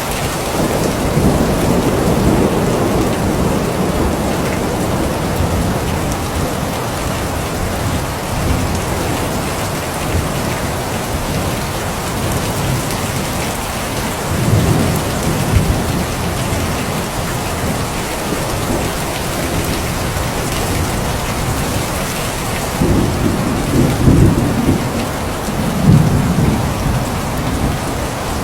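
Steady rain falling, with low rolling rumbles of thunder at the start, about halfway through, and several times near the end.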